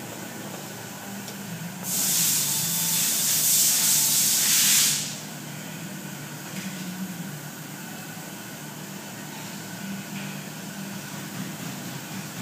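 A loud, steady hiss of rushing air or spray, starting about two seconds in and lasting about three seconds, over a constant low hum.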